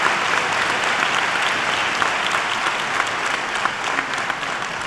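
Large audience applauding, a dense steady clapping that eases slightly near the end.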